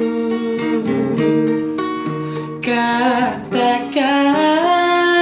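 Acoustic guitar accompaniment with a young singer's voice holding long, wavering notes, a drawn-out line between sung phrases of a slow Indonesian ballad.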